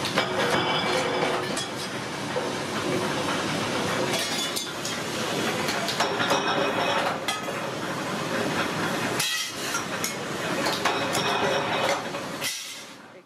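Flywheel-driven mechanical power press running, its die striking steel trowel blanks in a dense metallic clatter with clinks of loose sheet-steel pieces. The sound drops away sharply near the end.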